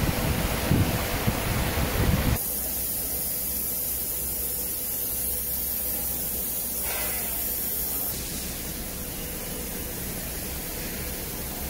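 Steady hissing noise with a low rumble from a 5-axis CNC router's spindle running, with a few low thumps in the first two seconds. The sound changes abruptly twice, about two and a half seconds in and about eight seconds in.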